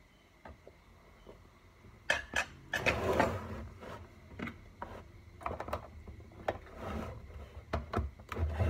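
Clear acrylic enclosure being handled and shifted, with a wooden log and substrate inside: a run of sharp knocks and clicks with some rustling, starting about two seconds in after a quiet start.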